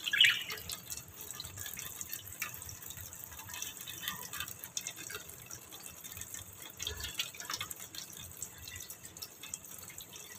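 Water dripping and splashing irregularly in a stainless steel sink around a wire birdcage, in scattered small ticks and splashes, with one sharper, louder sound right at the start.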